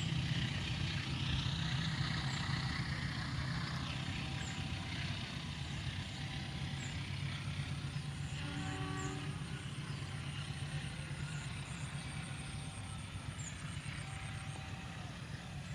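CC206 diesel-electric locomotive's engine running at a steady low rumble, slowly fading. A brief faint tone sounds about eight or nine seconds in.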